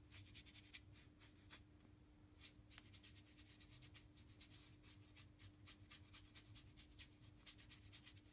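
Faint, quick scratchy strokes of a paintbrush dry-brushing paint onto a carved XPF foam model retaining wall, several strokes a second, coming faster after about two and a half seconds.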